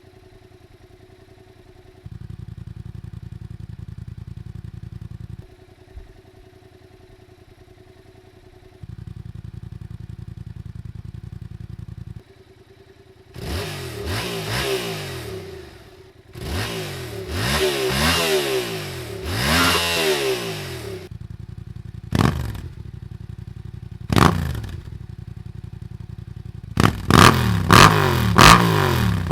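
Yamaha FZ-07's 689 cc parallel-twin engine idling, in segments that switch every three to four seconds between the stock exhaust and a louder Yoshimura R-77 full exhaust with the baffle in. Then it is revved in rising and falling sweeps and two sharp blips, and near the end it bounces off the rev limiter in a rapid stutter.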